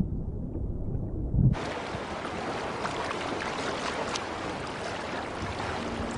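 Muffled low rumble of water with a few dull thumps, then a sudden switch about a second and a half in to a steady rushing hiss of sea and wind.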